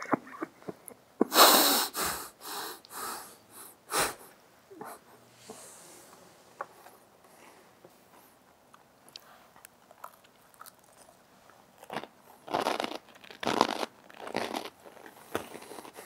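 Crunchy snack chips being bitten and chewed close to lapel microphones. A run of loud crunches comes about a second in, then it goes quiet, and another cluster of loud crunches comes about twelve to fifteen seconds in.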